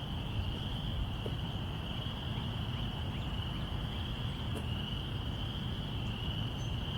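Steady outdoor insect chorus, a continuous high-pitched trill, over a low background rumble.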